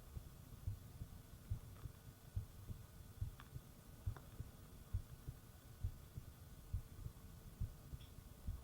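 A human heartbeat heard close up, as with an ear on the chest: a slow, steady lub-dub of soft low thumps at about 70 beats a minute, over a faint hum.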